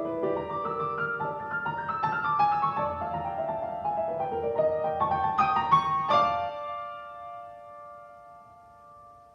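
Solo piano playing the end of a classical piece: a flowing line of notes climbing and falling until about six seconds in, then a final chord struck and left to ring, fading away.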